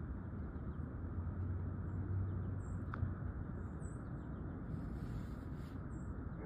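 Steady outdoor background noise with a low hum, faint short high chirps now and then, and a single sharp click about three seconds in.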